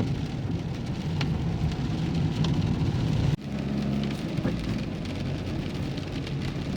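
Rain falling on a moving Renault Kangoo, heard from inside the cabin over the car's steady low engine and road hum. The sound breaks off abruptly about halfway through and picks up again.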